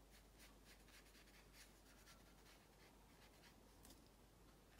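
Faint, light strokes of a small round paintbrush on watercolour paper, about three short brushing sounds a second.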